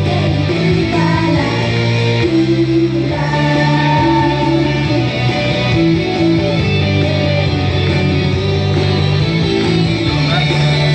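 Live idol pop song over a PA: young women singing into microphones over a backing track with electric guitar and a steady bass.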